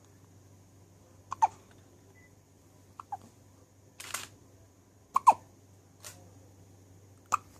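Repeated hiccups, four of them about two seconds apart, each a quick click followed by a short falling note. A brief hiss comes between the second and third.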